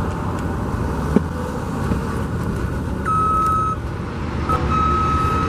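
Steady low rumble of road traffic, with a vehicle's reversing alarm beeping a few times from about three seconds in.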